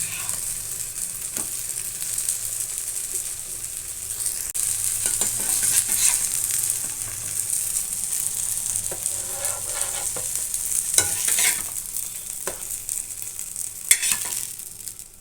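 Eggplant slices frying in hot mustard oil in a pan: a steady sizzle, with a few light knocks of a utensil against the pan.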